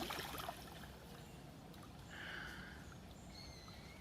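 Faint water splashing and dripping in the first half second, then quiet pond-side ambience with a bird's short call about two seconds in and thin high whistled notes near the end.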